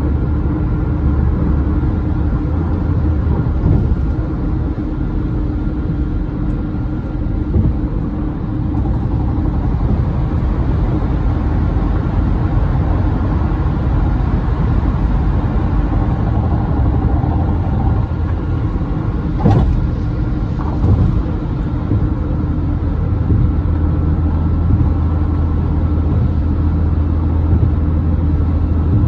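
Road and engine noise heard from inside a car cruising at freeway speed: a steady tyre rumble with a low hum. Two short thumps come about two-thirds of the way through.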